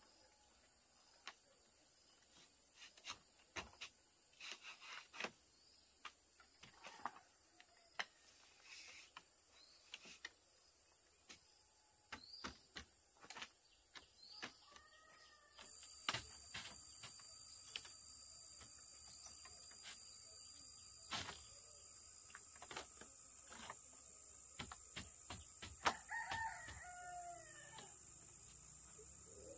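Scattered light knocks and taps of bamboo slats being handled over a steady high insect drone. A rooster crows once near the end.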